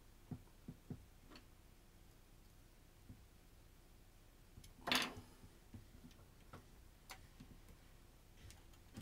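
Faint scattered clicks and ticks of small parts being handled as a squeezed wire contact is worked at to push it back into its connector, with one short, louder scraping noise about five seconds in.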